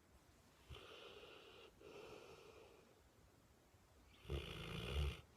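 Snoring: two softer rasping snoring breaths, then a louder, deeper snore about four seconds in.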